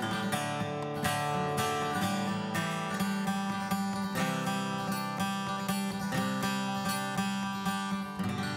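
Background music: acoustic guitar strumming steadily through the instrumental end of a song, with the last chord left ringing at the very end.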